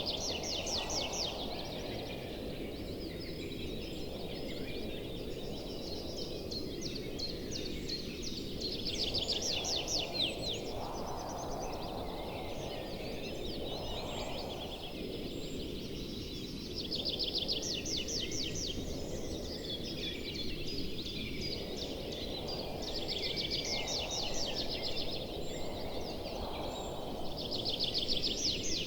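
Outdoor nature ambience: a steady low rush with bouts of high, rapid trilling recurring every few seconds.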